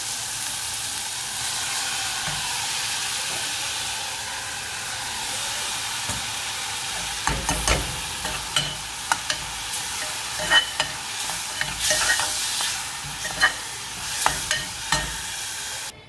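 Chopped onions and tomatoes sizzling in oil in an aluminium pressure cooker. From about halfway in, a steel spoon clinks and scrapes against the pot again and again as ground mint masala paste is added and stirred in. The sizzle cuts off suddenly near the end.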